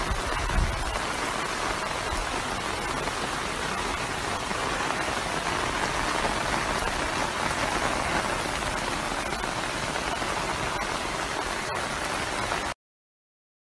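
Heavy monsoon rain falling steadily as a dense, even hiss, with a low thump about half a second in. The sound cuts off suddenly near the end.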